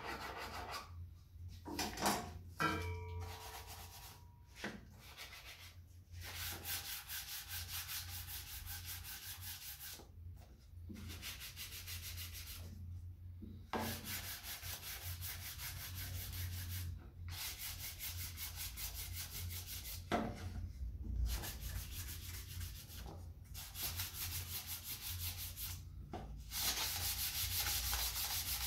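Hand-sanding with a small piece of sandpaper along the edge-banded edges of a small solid-wood box: quick back-and-forth rubbing strokes in bouts of a few seconds with short pauses between them, after a few file strokes at the start. The sanding takes the sharp corner off the edge banding.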